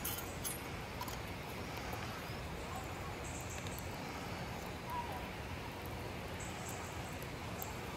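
Small handheld battery fan running steadily, blowing air onto campfire embers: a faint, even whir. A short faint chirp comes about five seconds in.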